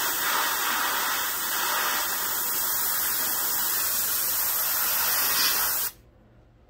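Airbrush hissing steadily as it sprays a very light mist of black paint, then cutting off abruptly near the end when the trigger is released.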